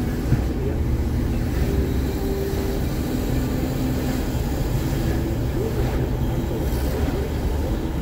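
Steady low rumble of tyre and engine noise heard from inside a moving car's cabin while driving along a city street.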